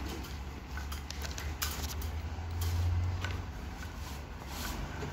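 Low rumble of a handheld phone microphone carried at a walk, swelling briefly around the middle, with a few scattered light taps, like footsteps on a tiled floor.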